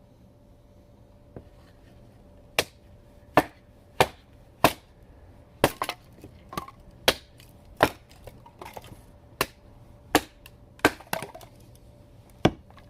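Axe chopping wood: a dozen or so sharp blows, roughly one a second and unevenly spaced, beginning a couple of seconds in.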